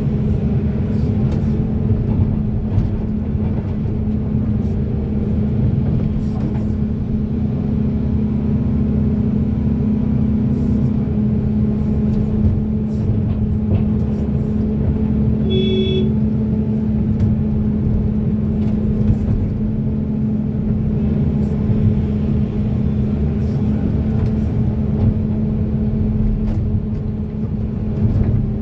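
Heavy diesel engine of a hydraulic excavator running steadily under load while digging, with scattered sharp knocks and a brief high beep about sixteen seconds in.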